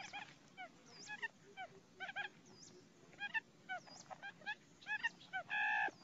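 Barred buttonquail calls: a busy stream of short chirps, several a second, with a louder, drawn-out nasal call near the end.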